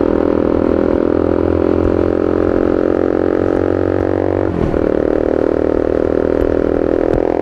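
2017 KTM Duke 250's single-cylinder engine running through an Austin Racing GP1R exhaust fitted with two dB killers, held at a steady engine speed, with a brief dip and recovery in pitch about four and a half seconds in.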